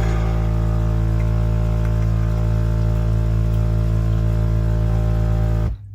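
Gretess capsule espresso machine's pump running with a loud, steady hum while dispensing a lungo-size shot, then cutting off abruptly near the end.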